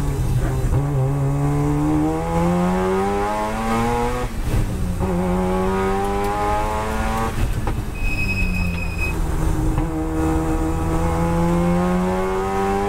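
Turbocharged twin-rotor rotary engine of a Mazda RX-7 FD3S race car, heard from inside the cabin, accelerating hard out of a slow corner. Its note rises through a gear, breaks for an upshift about four seconds in, and climbs again. It drops back when the driver lifts around seven and a half seconds in, then pulls up again. A brief high beep sounds about eight seconds in.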